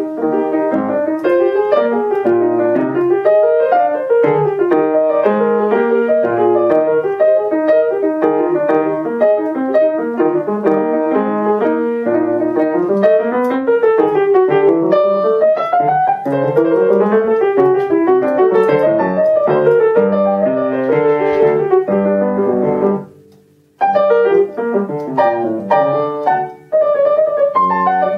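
Yamaha upright piano played solo in quick running passages of many notes that rise and fall. Near the end the playing stops for about half a second and then resumes.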